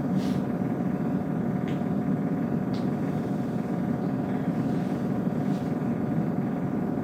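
Steady low rumble of room background noise, with a few faint soft ticks.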